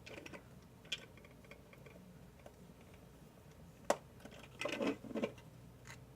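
Small clicks and crinkling from handling the plastic parts of a DIY candy kit, with one sharp click about four seconds in followed by about a second of rustling.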